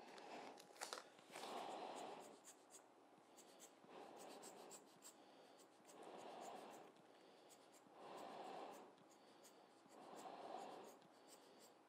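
Rubber bulb air blower (Giotto lens blower) squeezed again and again, soft puffs of air about every two seconds, blowing wet alcohol ink across the paper.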